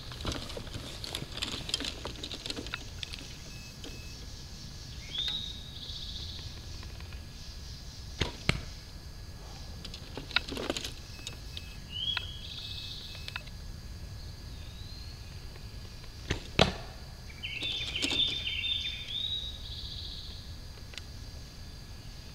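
A bow being shot: a few sharp snaps of the string as arrows are loosed. Birds chirp between the shots.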